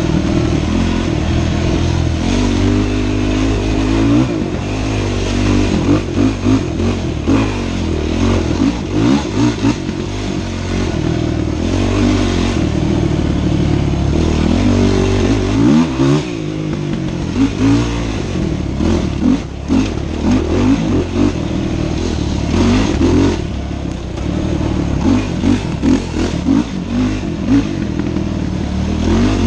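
Dirt bike engine revving up and down as it is ridden hard along a trail, its pitch climbing and dropping every second or two under a steady low rumble.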